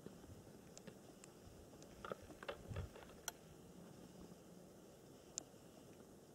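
Near silence with a few faint short clicks and taps, a small cluster of them about two to three seconds in and single ones later.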